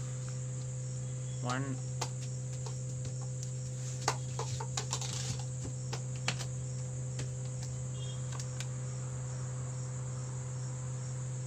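Crickets chirping steadily in the background over a steady low hum, with a few scattered light clicks and taps, the sharpest about four seconds in.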